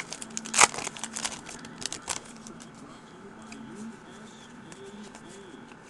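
A foil trading-card pack wrapper crinkling and tearing open in the hands, a run of sharp crackles with the loudest about half a second and two seconds in, then quieter handling.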